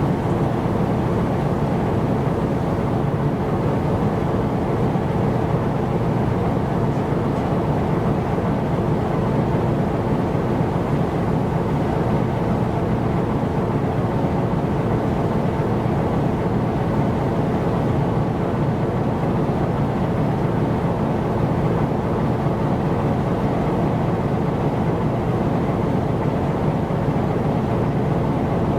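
Ship's diesel engine running at a steady speed: a constant low drone with a hum of steady tones.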